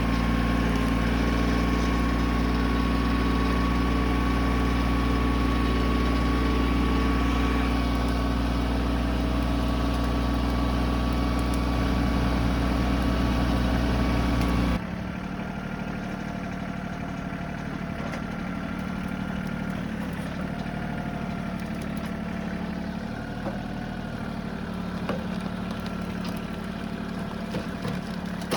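Tractor engine running steadily. About halfway through the sound cuts abruptly to a quieter engine running.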